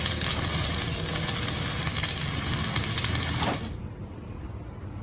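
Mechanical workshop noise: a dense clattering with sharp clicks, which stops about three and a half seconds in, leaving a quieter low hum.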